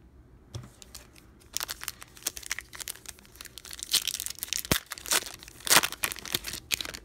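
Foil wrapper of a baseball card pack being torn open and crinkled by hand, a dense run of crackling rips starting about a second and a half in, loudest toward the end as the cards are pulled out.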